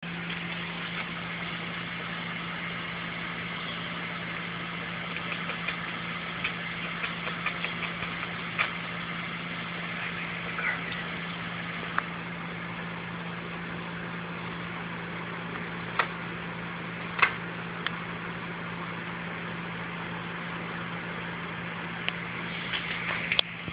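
A steady low hum, like a motor or appliance running, with scattered sharp clicks and a few scratchy sounds, several of them near the end.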